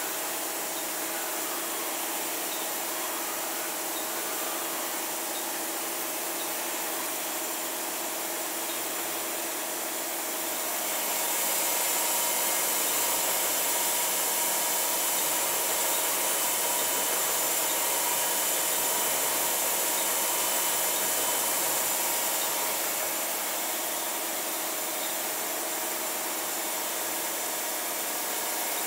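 Takisawa TMM-250 twin-spindle CNC lathe running on test: a steady machine hum and hiss with several whining tones. From about 11 s to 22 s it grows louder, with more hiss, while a spindle chuck spins, then settles back.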